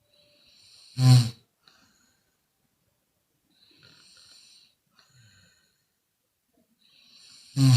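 A woman snoring: two short, loud snores about six and a half seconds apart, each led in by a hissing breath, with a quieter breath between them.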